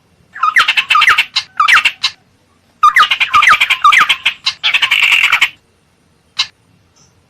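Tit-babbler (ciung air) giving harsh, chattering scold calls laced with quick rising notes. There are two long bouts, then a single short note near the end. This is a lure call used to attract the birds.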